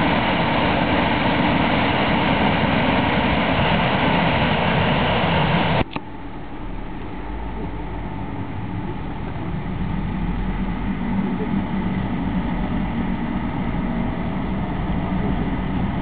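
Loud, steady rushing of the Ain river in flood, water churning through white rapids. It cuts off sharply about six seconds in, and a quieter, deeper rushing noise follows and slowly grows.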